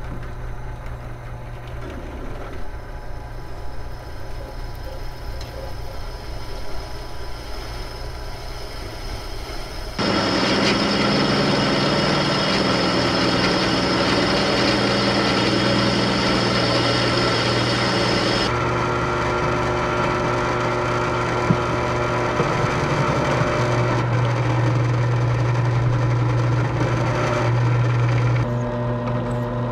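Benchtop drill press running while its bit drills holes in a steel cross member. The motor hum is steady; about ten seconds in the sound gets louder with several steady high tones, changes again at about 18 seconds, and drops back near the end.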